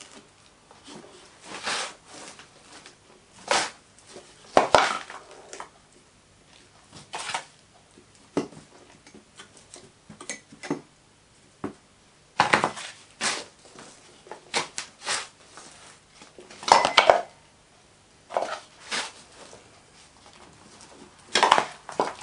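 Moulding sand being scooped into a wooden moulding box and rammed down around the pattern: irregular scrapes, pours and knocks from the plastic scoop and the rammer.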